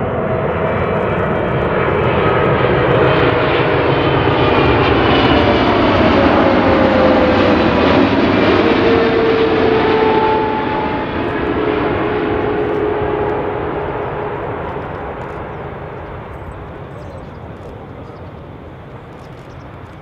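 Boeing 777 freighter's twin GE90 turbofans passing on landing approach. The jet roar swells to its loudest around eight to ten seconds in, with a whining engine tone falling in pitch as the plane goes by, then fades as it moves away.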